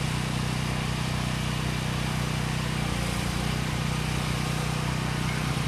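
Portable gas generator engine running steadily under the load of a Lincoln AC 'cracker box' stick welder, with the even crackling hiss of the welding arc over it.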